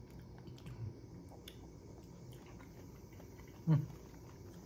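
Soft chewing of fruit jelly pieces, with faint clicks from fingers in a plastic cup. A brief voiced sound from the eater comes about three-quarters of the way through.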